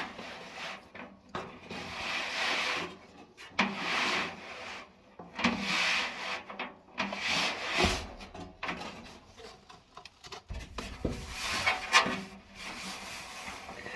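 Rubbing in repeated strokes, each about a second long, as a new drive belt is worked and smoothed around a dryer drum, with a couple of dull knocks in the second half.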